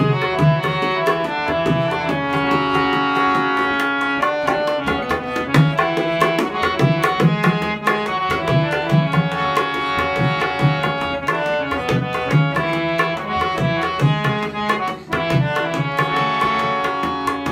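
Instrumental interlude of a Hindi bhajan: tabla playing a steady rhythm under a melody instrument playing held notes.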